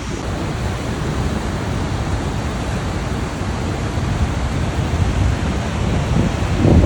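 Niagara Falls' waterfall, a steady rush of falling water. A louder low gust of wind hits the microphone near the end.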